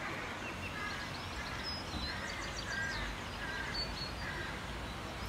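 Small songbirds singing outdoors: a string of short chirps and warbling phrases from more than one bird, over a steady low background rumble.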